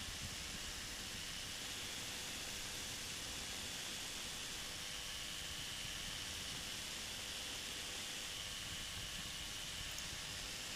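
Steady rushing hiss of airflow and engine noise in the open cockpit of a flexwing microlight trike climbing out after takeoff, with a faint steady tone running under it.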